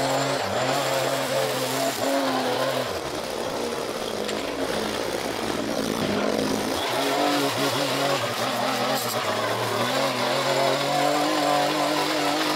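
Handheld gas string trimmer running, cutting grass, its engine speed dipping and rising several times as the throttle is eased and opened again.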